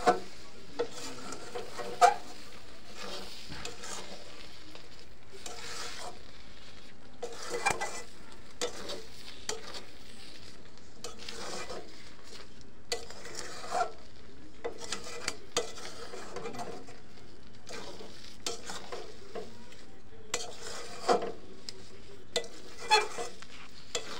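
Metal spatula scraping and knocking against a steel kadai as thick jujube pickle is stirred to mix in the ground spices. Irregular sharp clicks and scrapes, the loudest about two seconds in and twice near the end, over a steady sizzle of the pickle cooking down.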